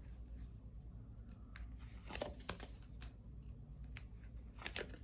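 Tarot cards being handled on a table: a few faint rustles and light taps over a low steady room hum.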